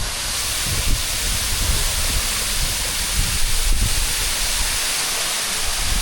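San Ramón Waterfall, a steady rush of falling water.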